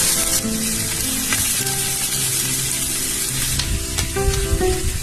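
Food sizzling as it fries in a hot pan, a dense crackling hiss that thins near the end, over background music.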